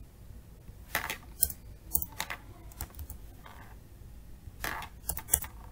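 Computer keyboard being typed on in two short irregular runs of key clicks, one about a second in and one near the end.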